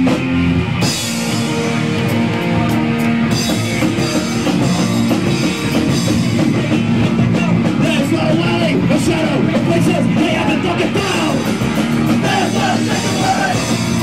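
Punk rock band playing live at full volume: electric guitar, bass and drum kit driving through the song's opening.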